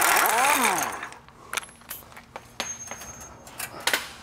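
Pneumatic wrench on an air hose running loudly for about the first second, unthreading a bolt from the front differential mount, its pitch rising and then falling as the trigger is let off. Light metallic clinks and taps of tools and loose parts follow, with a sharper click near the end.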